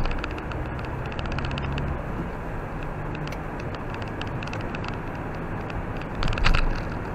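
Car driving on a slushy, snow-covered road, heard from inside the car: steady engine hum and tyre noise with scattered light clicks, and a louder thump about six seconds in.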